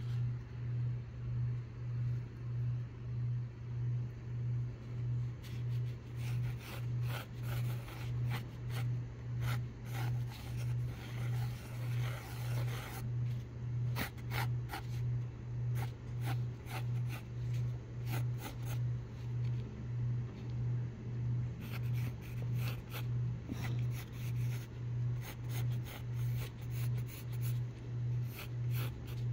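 Graphite pencil scratching on sketchbook paper in quick back-and-forth strokes while loose circles are sketched. The strokes start a few seconds in and pause briefly about halfway through. Under them runs a steady low hum that swells and fades about three times every two seconds, and it is the loudest sound throughout.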